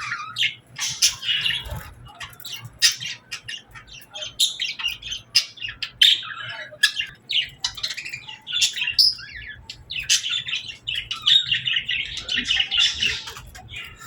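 Several small birds chirping and chattering, rapid short high calls overlapping almost without pause.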